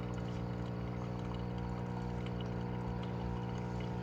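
Single-serve pod brewer running mid-brew: its pump gives a steady hum while hot chocolate pours into a stainless travel mug.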